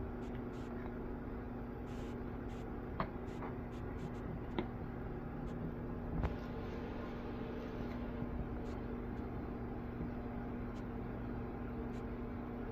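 Steady low hum with a constant tone, and scattered faint clicks and small taps from food being handled and mixed in a bowl, a few louder taps about three, four and a half and six seconds in.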